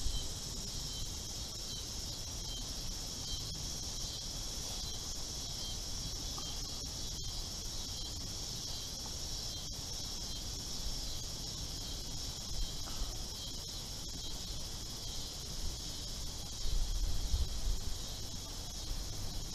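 Steady, high-pitched chorus of insects, with low wind rumble on the microphone that grows louder near the end.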